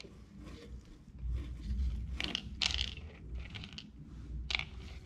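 A Bornean orangutan handling and eating food in a transport crate: four or five short crackling noises over a low rumble that starts about a second in.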